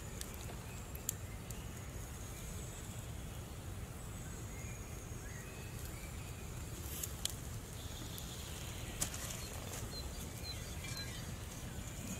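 Outdoor ambience: a steady low rumble under a thin, high insect drone, with a few soft clicks as raw dough is settled into a cast-iron pan and faint bird chirps about ten seconds in.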